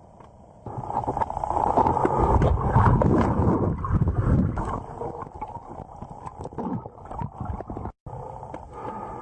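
Rushing water and bubbling picked up by a GoPro in its housing underwater, with many knocks on the case. It starts suddenly about a second in, is loudest for the next few seconds, then eases off.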